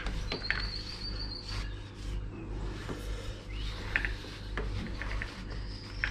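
A cloth sock rubbing along a motorcycle drive chain, with scattered light clicks of the chain links, as the chain is wiped clean of cleaning agent before lubing. A thin, steady high tone sounds for about a second near the start, over a low steady hum.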